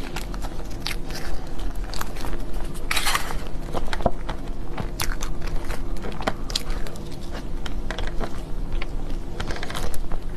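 Close-miked biting and chewing of a chocolate dessert, with many short, sharp crackles and crunches and one longer crunch about three seconds in.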